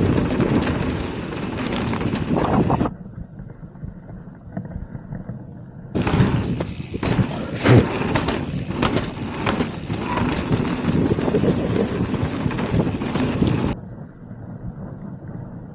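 Mountain bike riding fast down a dirt trail: wind rushing over the microphone, with tyre noise and the bike clattering over bumps and rocks. The sound drops to a quieter, muffled spell from about three to six seconds in and again near the end.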